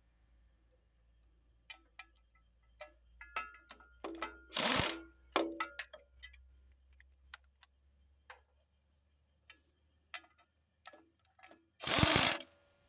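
Cordless power driver spinning engine mounting bolts in through a wobble-joint extension and socket, in two short bursts several seconds apart. Light metal clicks and clinks of the socket and bolts come between the bursts.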